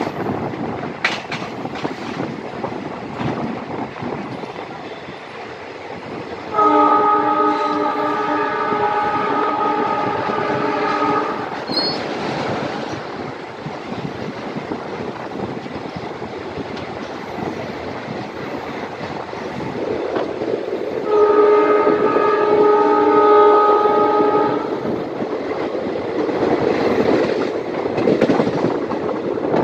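Passenger train running along the track, heard from an open coach window as a steady wheel-and-rail rumble with wind. The WDP4D diesel locomotive's horn sounds two long blasts, one of about five seconds about a quarter of the way in and one of about four seconds about two-thirds of the way through.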